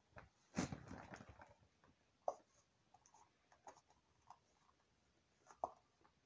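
Faint handling sounds of a squeezed plastic glue bottle over a plastic tub: a brief rustle about half a second in, then scattered light clicks and taps.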